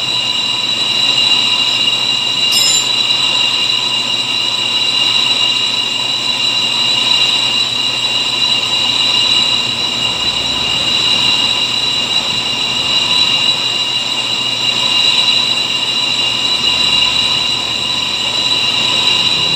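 Brake lathe refacing a spinning Toyota Fortuner brake rotor: the cutting tool on the disc face gives a steady, high-pitched metallic squeal over the machine's running noise, with one short click about two and a half seconds in.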